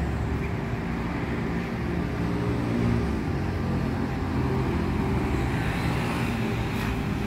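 City street traffic: a steady low hum of car engines on the road alongside.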